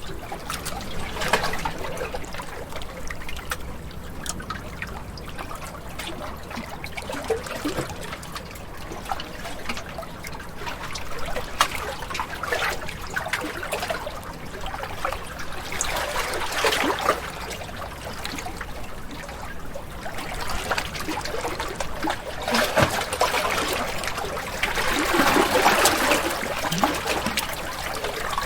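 Ocean waves breaking and washing ashore, with splashing and trickling water. The wash swells several times, the loudest surge coming near the end.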